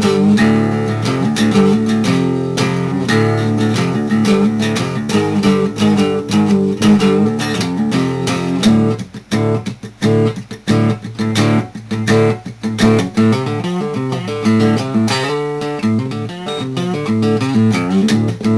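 Background guitar music: a picked guitar tune with a steady melody and bass line.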